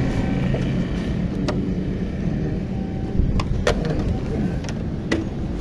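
Motor vehicle running, a steady low rumble, with a few short sharp clicks or taps over it.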